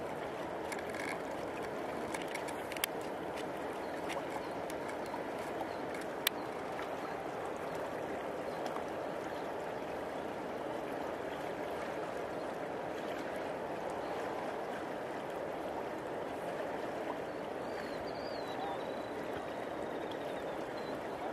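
Steady rushing of a river's current flowing over the shallows. A couple of sharp clicks come about three and six seconds in.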